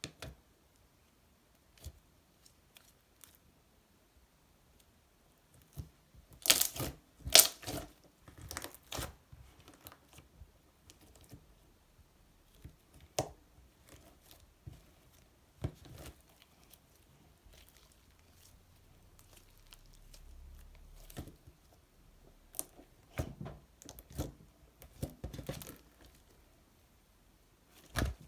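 Slime being worked and squished by hand, making sticky crackles and small clicking pops in uneven bursts. The busiest, loudest bursts come about seven seconds in and again a few seconds before the end.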